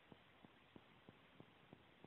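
Near silence: faint room tone with soft, evenly spaced ticks about three times a second.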